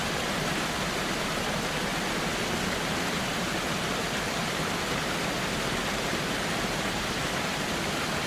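Waterfall rushing: a steady, even wash of falling water with no breaks or changes.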